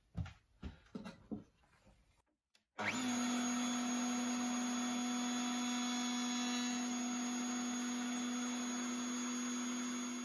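Table-mounted router starting about three seconds in and running at a steady speed, a strong even hum under a high whine, winding down near the end. A few light knocks of wood being handled come before it starts.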